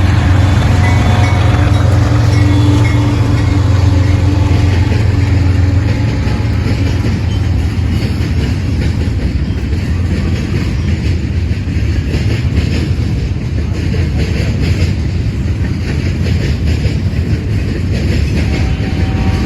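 BNSF manifest freight train passing close by. For the first several seconds the diesel locomotives' engines are the loudest sound, a low steady drone. Then the freight cars roll past with a steady rumble and clatter of wheels on the rails.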